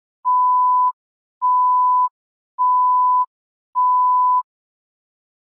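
Countdown-leader beeps: four identical steady high-pitched beeps of one pitch, each about three-quarters of a second long and about one a second, each cut off sharply.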